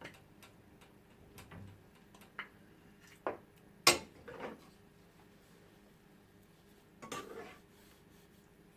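Scattered clinks and knocks of dishes and serving utensils as food is dished out, a few separate strikes with the loudest about four seconds in.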